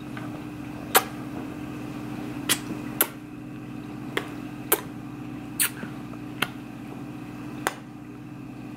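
About eight light, sharp clicks and taps at irregular intervals over a steady low hum.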